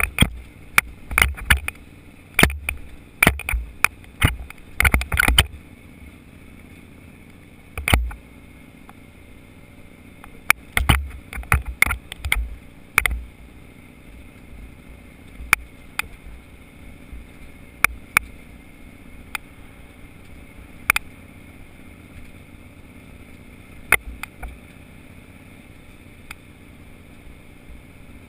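Helmet-mounted action camera jolting along a rough, rocky dirt road: a steady low rumble of wind and riding noise, broken by sharp knocks and rattles as it bounces over rocks. The knocks come thick and fast for the first five seconds and again around eleven to thirteen seconds in, then only now and then.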